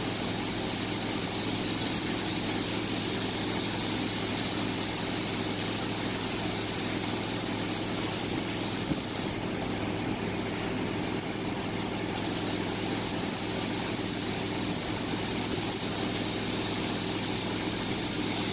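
Compressed-air hiss of a gravity-feed paint spray gun spraying, cutting out for about three seconds around the middle while the trigger is released, then spraying again. A steady low machine hum runs underneath.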